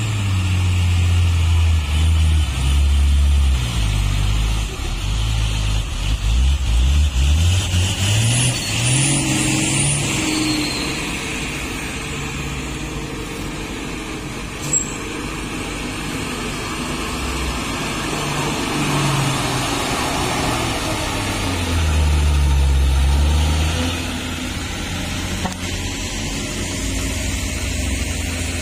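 Heavy diesel engines, those of a bogged-down loaded Fuso 6x2 dump truck and the excavator towing it out, running and revving in repeated surges that rise and fall in pitch. A single sharp click about halfway through.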